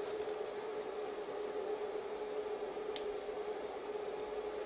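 A few faint small clicks of plastic and metal parts being handled as a camcorder tape deck's loading motor is pressed into its plastic retainers, the clearest about three seconds in, over a steady background hum.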